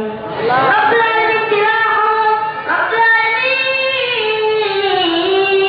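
A child's high voice singing slow, drawn-out melodic phrases, holding notes for a second or more and sliding between pitches.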